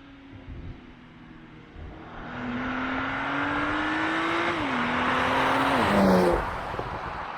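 Porsche Macan Turbo's twin-turbo V6 accelerating hard, growing louder with the revs rising, two quick upshifts where the pitch drops, loudest about six seconds in and then fading away.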